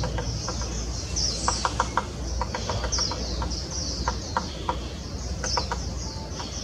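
Small birds chirping steadily in high, quickly falling repeated notes, with clusters of short sharp ticks scattered throughout, over a low steady rumble.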